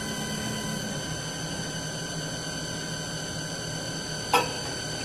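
CNC wood turning lathe running through its automatic cutting program. It makes a steady high-pitched whine of several even tones over a low hum, with one sharp click about four seconds in.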